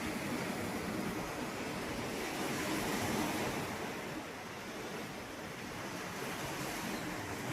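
Sea waves breaking and washing up on a beach shoreline, swelling louder about three seconds in and easing off after.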